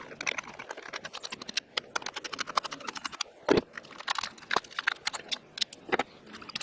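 Rapid clicking of a socket ratchet loosening the small 10 mm bolts that hold the ignition coils on a Hyundai Tucson engine, broken by a few louder knocks of metal tools.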